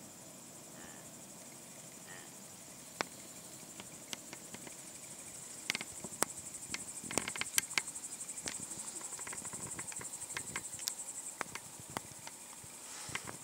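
High, fast-pulsing insect chirring, louder from about halfway in, with scattered sharp clicks and snaps throughout.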